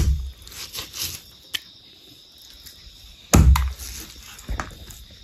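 A large knife chopping raw chicken on a wooden chopping block. There are several separate chops, the heaviest about three and a half seconds in.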